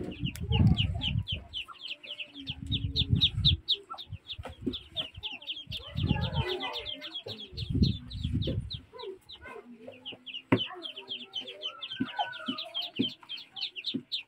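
Chickens peeping in a fast, steady run of short high calls, with a few lower clucks. Four dull, low, scraping thumps of about a second each come from a wooden paddle working stiff ugali in a pot on a stone hearth.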